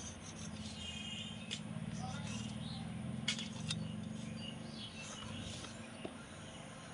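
Kitchen knife knocking on the board while cutting samosa dough into pieces: a few sharp clicks over a low steady hum.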